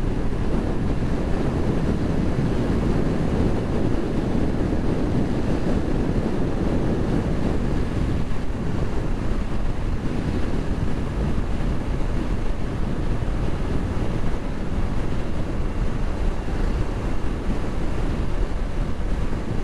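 Steady wind rushing over the microphone of a camera on a Yamaha XTZ 150 motorcycle cruising on a highway at about 95 to 100 km/h. It is a dense, even rumble with no distinct engine note standing out.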